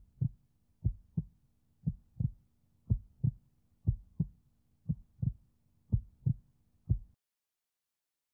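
Heartbeat sound effect: a steady lub-dub double thump about once a second, about eight beats, stopping a second before the end.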